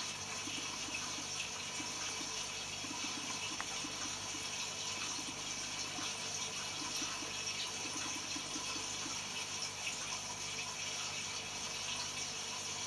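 Steady rush and bubbling of aquarium water, with a stream of air bubbles rising through the tank.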